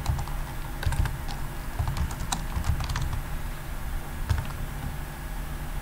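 Typing on a computer keyboard: irregular keystrokes, a few clicks a second, as a line of HTML is entered.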